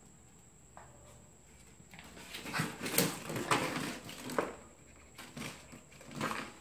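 Plastic water bottle with dry kibble inside rattling and scraping over a tile floor as a small dog noses it along, in a run of bursts from about two seconds in to past four seconds and once more near the end.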